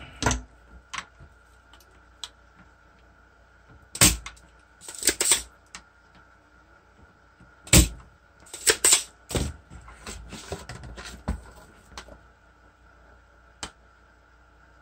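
Scattered sharp clicks and taps of hand tools working on a circuit board while a capacitor is desoldered, the loudest about four, five and eight seconds in. A faint steady high hum runs underneath.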